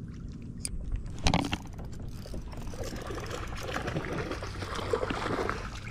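Water splashing and sloshing near a kayak, with light clicking from a spinning fishing reel being handled, and a single knock about a second in.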